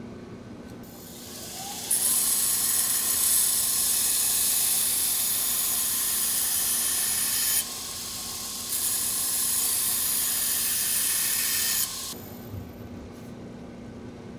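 Belt grinder running, with a leaf-spring steel knife blade pressed against the abrasive belt on its contact wheel, grinding the bevel with a loud hiss. The grinding comes in two passes, about five seconds and then about three, with a short lift-off between. After that only the grinder's motor and belt are left running.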